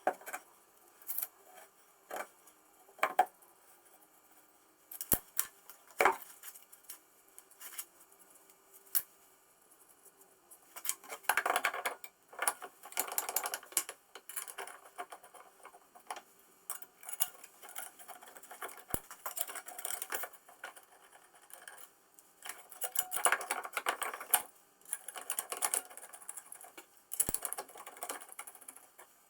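Small metal parts of a tram gear shifter clicking and clattering as it is assembled by hand: scattered sharp clicks and taps, with two longer spells of rattling clatter, about a third of the way in and again past two-thirds.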